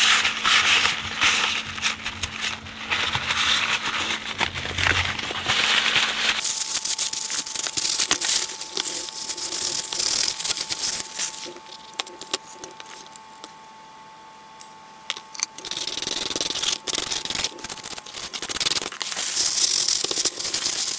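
Cloth scrubbing and wiping old grease off the steel plate of a BSR UA15SS record changer, with the plate scraping and rattling against the bench. The rubbing eases off for a few seconds in the middle, then starts again.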